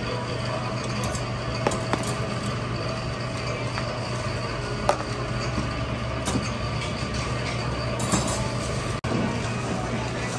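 A steady low hum with a few sharp metallic clinks and knocks as the cast-iron egg-cake mould is filled and its heavy iron lid is closed.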